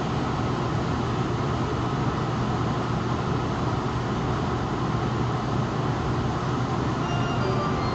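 Steady hum and rush inside a stationary Tokyu 5000 series commuter train car, with a constant low drone from its onboard equipment and ventilation. Faint high whining tones come in near the end.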